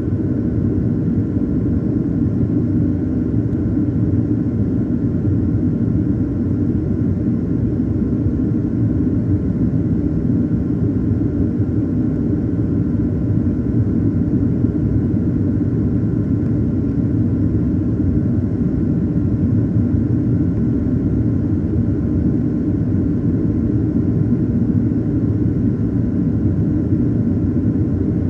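Steady cabin noise inside a Boeing 737-800 in flight: a constant low rumble of its CFM56 turbofan engines and the air rushing past the fuselage, with a faint steady hum.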